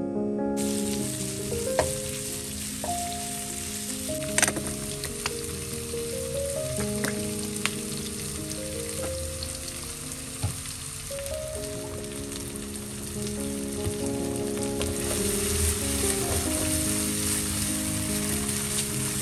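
Sliced onions and tomato sauce sizzling in a nonstick frying pan on a gas burner, with a silicone spatula stirring and a few sharp clicks against the pan. The sizzle grows louder in the last few seconds. Soft background music plays underneath.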